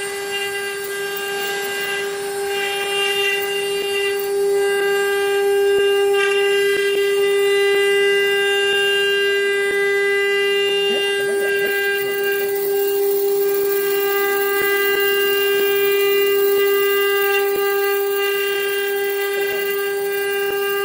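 Eight router spindles of a 4-axis rotary CNC router cutting together in a finishing pass: a steady, unchanging whine with faint cutting noise underneath.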